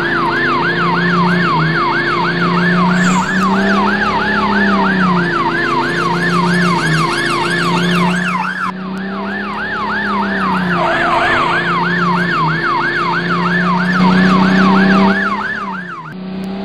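Ambulance siren sound effect in fast yelp mode, rising and falling about three times a second over a steady low drone. It breaks off for a moment about halfway and stops shortly before the end.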